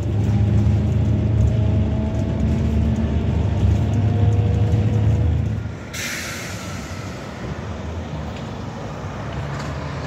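A diesel coach engine runs with a loud, low rumble. About six seconds in comes a sudden air-brake hiss, and after it the engine runs quieter.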